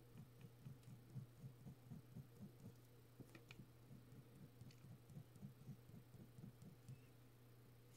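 Faint, rhythmic strokes of a ballpoint pen hatching on paper, about four to five strokes a second, over a steady low hum, with a few light ticks.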